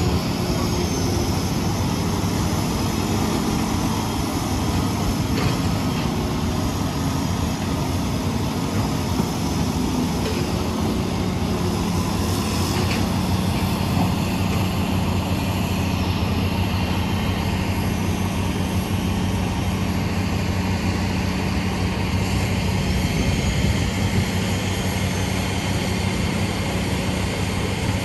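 Heavy diesel engines of excavators and dump trucks at work, running steadily as a continuous low drone.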